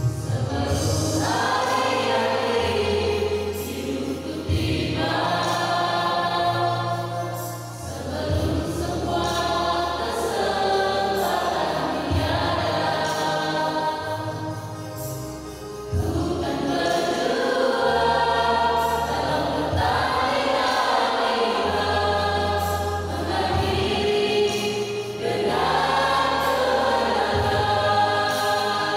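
Mixed youth choir singing an Indonesian gospel song together in phrases a few seconds long, with steady low notes underneath.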